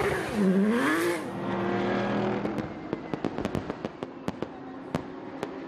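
A race car engine at close range, its revs dipping and then climbing again in the first second before holding steady. From about two and a half seconds in, fireworks go off as a run of sharp pops and crackles.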